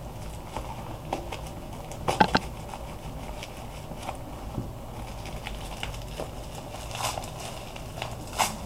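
Plastic packaging being handled: scattered crackles and clicks, with a louder clatter about two seconds in and a few more near the end.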